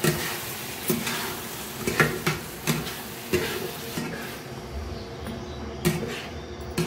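A spoon stirring and scraping masala in a non-stick kadai, knocking against the pan every so often, while the masala sizzles as it fries. The sizzle fades about four seconds in.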